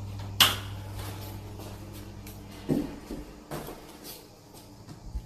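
A sharp click, then about two seconds later a dull knock of a door being shut, with a few lighter knocks after it. A steady low electrical hum fades out at about the same moment as the knock.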